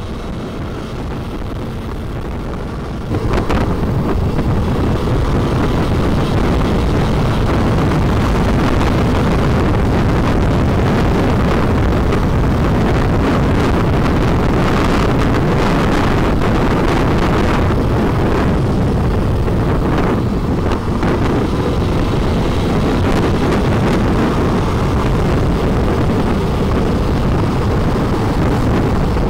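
Wind rushing over the microphone of a helmet camera on a motorcycle at road speed, with the bike's running and road noise underneath. The noise is steady and gets louder about three seconds in.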